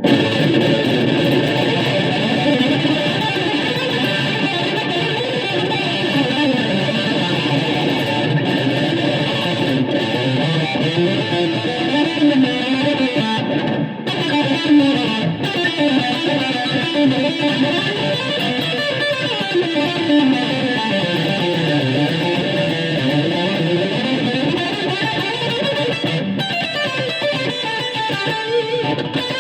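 Guitar improvisation played at shred speed. Rapid runs of notes sweep up and down the scale without a break.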